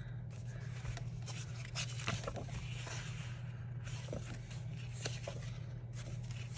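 Pages of a paper sticker book being flipped and handled, with light scattered rustles, taps and scrapes over a steady low hum.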